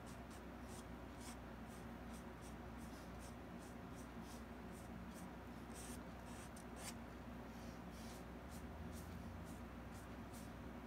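Paintbrush stroking paint onto a painted board: soft, irregular scratchy strokes, about two a second, over a steady low hum.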